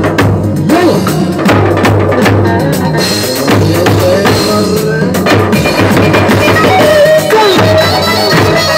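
Live band music from electronic keyboards playing a melody over a drum beat, with the drum hits thickest in the first few seconds.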